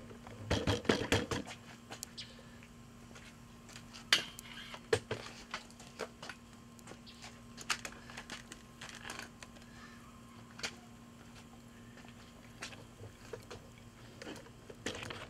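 Scattered clicks and knocks, with a short burst of louder clattering about half a second in, over a faint steady hum.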